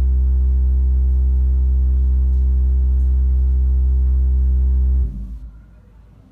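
Loud, steady low-pitched hum with a stack of even overtones that cuts off about five seconds in, leaving faint room tone.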